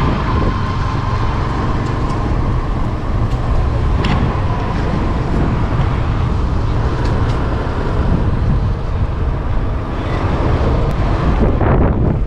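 Steady wind rush and road noise from riding a Suzuki Access 125 scooter.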